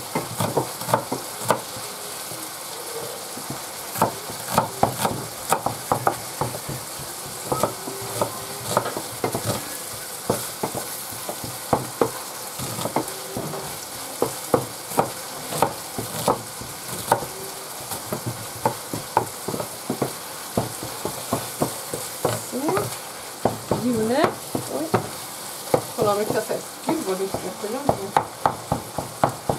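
Minced beef frying in a pan with a steady sizzle, over which frequent sharp knocks and clicks keep coming throughout.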